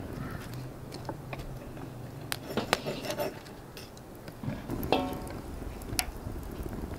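Heavy two-handled iron karahi set down on an iron trivet: a clank with a brief metallic ring just before five seconds in, after a few sharp clinks a couple of seconds earlier.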